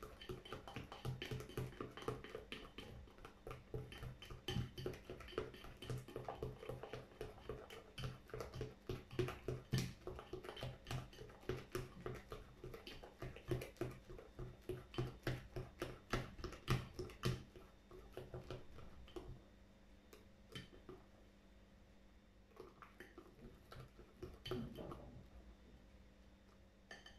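A plastic fork stirring a wet slime mixture in a ceramic bowl: rapid, quick clicks and taps of the fork against the bowl, thinning out to a few scattered taps after about 18 seconds.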